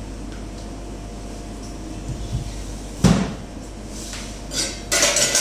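Ice cream being scooped at a display freezer: a steady hum of the refrigeration, then a single sharp knock about three seconds in, and near the end a run of scraping and clattering as the metal scoop works the tub and the ice cream goes into a paper cup.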